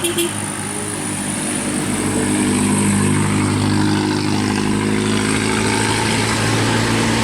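Engine of a heavy road vehicle running close by with a steady hum that swells about two seconds in and then holds. The tail of a short pulsing horn toot ends at the very start.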